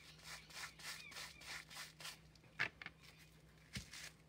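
Soft, quick dabbing and crinkling of paint-covered bubble wrap being loaded with blue paint and pressed onto paper, with a couple of sharper clicks in the second half.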